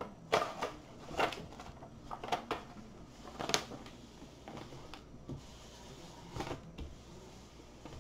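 Crinkling and rustling of a diamond painting canvas and its plastic cover film as they are handled and pressed flat by hand. There are a few short crackles, the loudest about three and a half seconds in.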